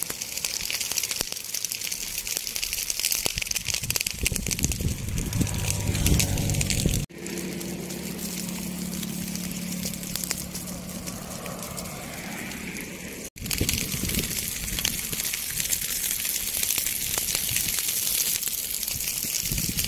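Dry scrub and grass burning in a wildfire, a dense crackle of small pops over a hiss. The sound breaks off abruptly twice, and between the breaks a steady low hum runs beneath the crackle.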